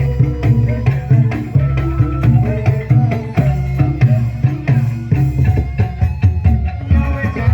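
Dangdut koplo band music: a steady hand-drum and percussion beat over heavy pulsing bass, with melodic instruments on top.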